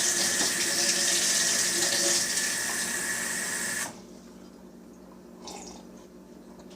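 Water tap running hard, with a steady whine in the pipes, shut off abruptly about four seconds in.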